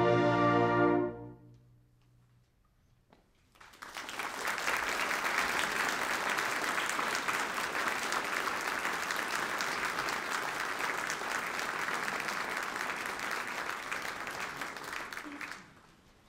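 A concert band's final brass-and-woodwind chord, held and cut off about a second in, rings away into a brief silence; then the audience applauds steadily until the sound fades out near the end.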